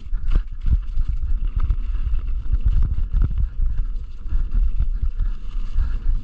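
Mountain bike rolling fast down rocky singletrack: tyres running over dirt, leaves and stones, with the bike rattling and knocking irregularly over bumps, and wind buffeting the microphone as a low rumble.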